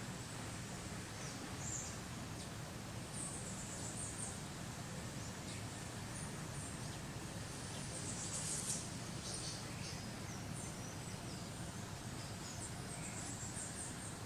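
Outdoor ambience: a steady background hiss with scattered short, high-pitched chirps, the loudest cluster about eight to nine seconds in.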